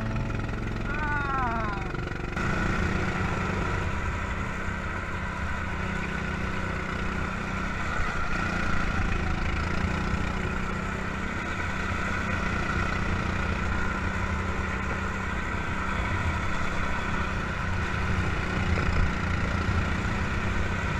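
Go-kart engine running under way, heard from the kart itself with wind and road noise. Its pitch drops briefly about a second in, then it settles into a steady drone.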